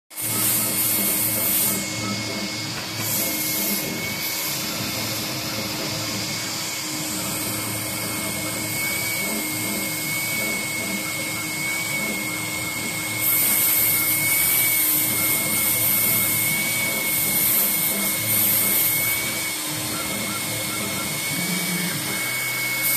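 MissileCNC 6090 CNC router running its laser engraving head over MDF: a steady whooshing machine noise with a thin, slightly wavering high whine and a low hum. It grows louder for a couple of seconds near the start and again for about six seconds from the middle.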